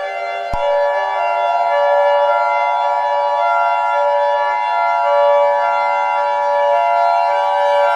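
Emergency alert alarm tone: a loud, steady siren-like sound made of several held tones that neither rise nor fall. About half a second in, a click marks where another tone joins and carries on.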